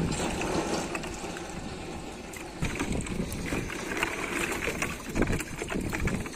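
Water sloshing and splashing in a perforated plastic jar as a hand rummages inside it, with small knocks against the plastic and wind buffeting the microphone.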